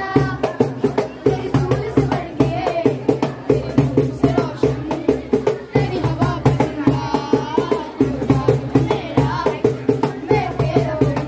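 Boys singing together into a microphone over a tabla, its strokes keeping a quick, steady beat.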